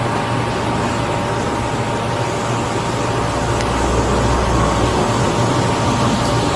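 Steady hum and hiss of an idling vehicle, with a few faint steady tones over it.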